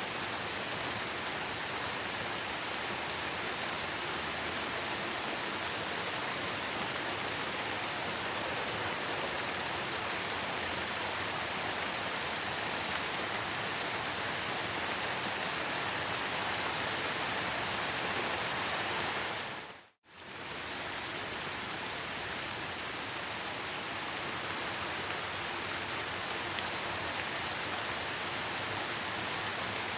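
Steady rain falling, an even hiss of many drops. About two-thirds of the way through it fades out to silence for a moment and straight back in.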